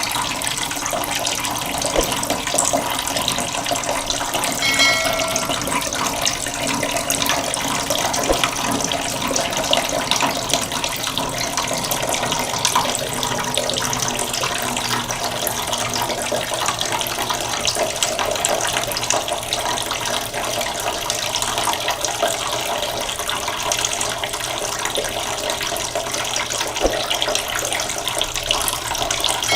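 Waterfall, a steady rush of falling water with no let-up. A brief pitched sound with several tones rises above it about five seconds in.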